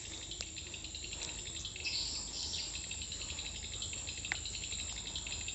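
Insects chirring steadily in the riverbank grass, a high, finely pulsing drone, with a single small click about four seconds in.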